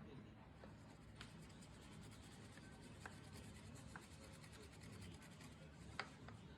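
Faint scratching over a low steady hum, with a few light clicks, from a small CNC carving machine's bit working the material.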